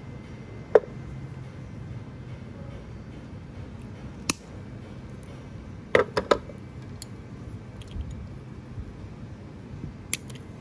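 Sharp metal clicks and taps of hand pliers and thin steel wire being handled on a tabletop, with the loudest click under a second in and a quick run of three clicks about six seconds in. A low steady hum runs underneath.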